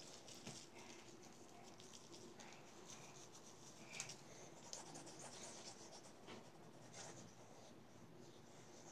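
Faint scratchy rubbing of an e.l.f. handheld face-scrub brush's bristles worked over the skin, with scattered soft clicks.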